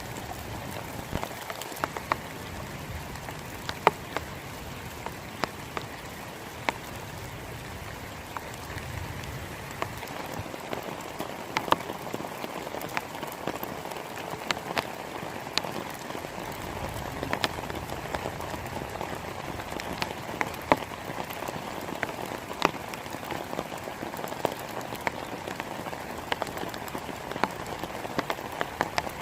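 Steady rain falling, with sharp single drop impacts standing out irregularly, about one or two a second.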